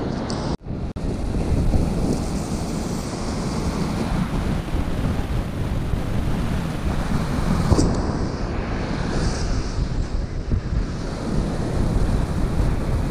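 Ocean surf breaking and washing up the sand, with wind buffeting the microphone; the sound drops out briefly about half a second in.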